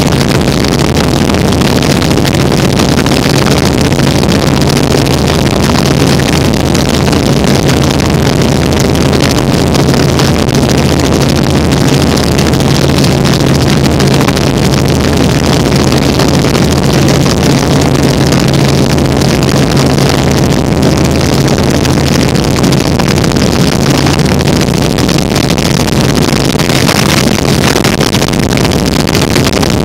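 Helicopter in flight, heard from on board: the engine and rotor run steadily and loudly, with a constant low drone under a dense rushing noise.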